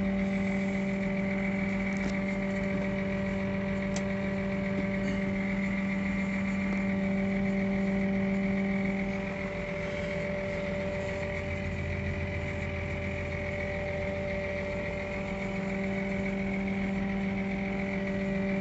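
Tractor engine running steadily, heard from inside the cab, with a steady higher whine above it. About halfway through, the engine note drops lower for several seconds, then returns to its earlier pitch.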